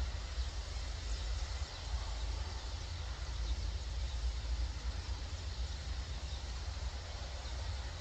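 A huge flock of starlings calling together as a dense, steady mass of chatter, over a steady low rumble.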